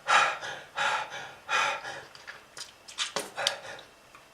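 A person breathing hard and fast. Three heavy, breathy breaths come in the first two seconds, about one every 0.8 s, then a run of shorter, catching breaths around three seconds in. This is the labored breathing of someone with diseased lungs.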